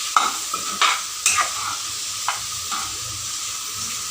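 Mixed vegetables (broccoli, baby corn, mushroom, sweet corn and freshly added capsicum) sizzling in a frying pan as a spatula stirs them, scraping and knocking against the pan several times in the first few seconds, then fewer strokes over a steady sizzle.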